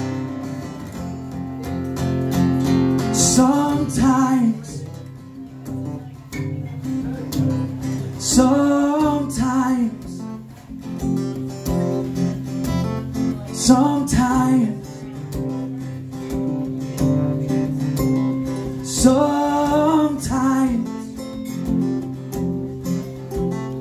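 Two acoustic guitars strummed and picked together in a live duo song, with a man's voice singing four short phrases between stretches of guitar.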